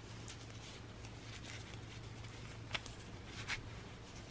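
Faint rustling and scraping of a cardboard strip being slid inside a crocheted yarn panel, with two sharper ticks in the second half, over a low steady hum.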